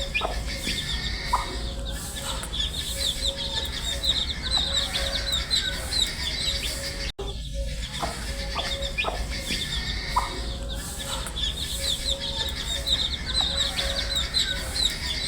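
A brood of baby chicks peeping together: a dense, continuous run of short high chirps over a faint low hum. The same stretch of audio repeats after about seven seconds, with a brief dropout at the join.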